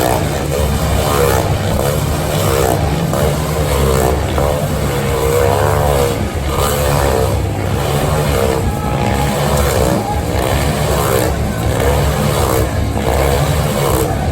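Motor vehicle engines running loud and revving up and down over and over, the pitch rising and falling every second or two over a steady low rumble.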